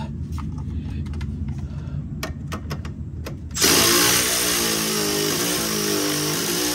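Cordless Milwaukee Fuel extended-reach ratchet running in one long burst that starts about halfway through, its motor whining as it works loose a stubborn strut mounting bolt. A few light metal clicks come just before it starts.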